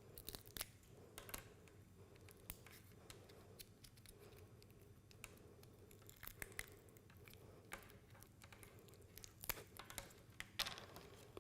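Faint sticky crackles and clicks of silicone-free polyurethane gel being pulled by hand off an inline connector and its wires, coming irregularly with a denser run near the end.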